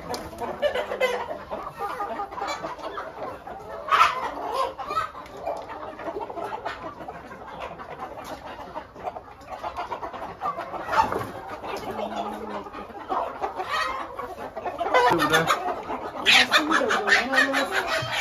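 A flock of chickens, hens and roosters, clucking and calling over one another. Near the end, a quick run of sharp taps, about six a second, rises over the clucking.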